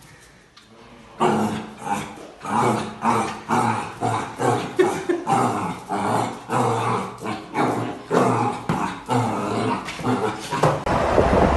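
A dog vocalizing in short, repeated growls and yips, about two a second. They start about a second in and stop shortly before the end.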